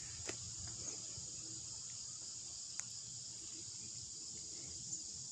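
Steady, high-pitched chorus of crickets, with a faint low hum beneath and a few soft clicks.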